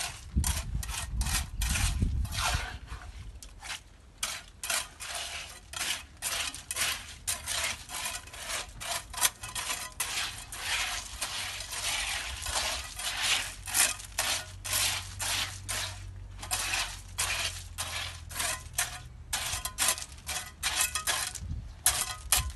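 Hand trowel scraping and spreading gravelly wet concrete: many short gritty scrapes with stones clinking, in quick irregular succession. A faint low hum runs underneath in the second half.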